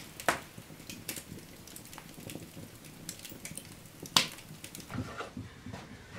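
Wood fire crackling in an open hearth, with scattered irregular pops and a sharper snap about four seconds in.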